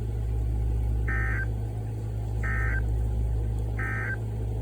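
Three short bursts of Emergency Alert System SAME data tones, each about a third of a second of buzzy two-pitch warbling and roughly a second and a quarter apart, over a steady low hum. This triple burst is the end-of-message code that closes an alert.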